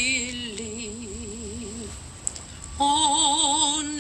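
A woman singing a slow hymn, holding long notes with a wide vibrato: one note that ends about two seconds in, then after a short breath a higher note.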